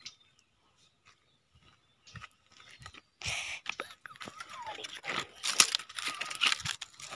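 Dry fallen leaves crunching and crackling underfoot, a dense run of crackles that begins about three seconds in and grows louder.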